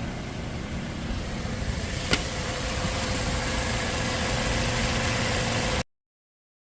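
Toyota Sienta's engine idling steadily with the air conditioning switched on, while the system fails to pull down: the low-side pressure won't drop and the high-side won't rise. A single sharp click sounds about two seconds in, and the sound cuts off suddenly near the end.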